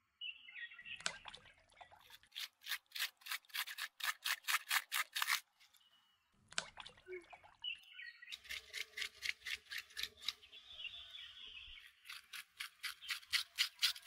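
A fresh aloe vera leaf scraped with a small plastic scraper in quick, even strokes, about four or five a second, in three runs with short pauses between. Birds chirp briefly near the start.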